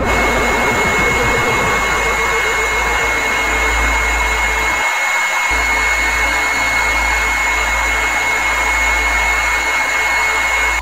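Dense, steady wall of hissing electronic noise with a high whistling tone held through it, a harsh-noise passage that starts and cuts off abruptly. The low rumble under it drops out briefly about five seconds in.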